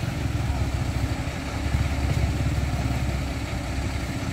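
Heavy trucks' engines idling in a steady low drone, with a motorcycle engine running close by.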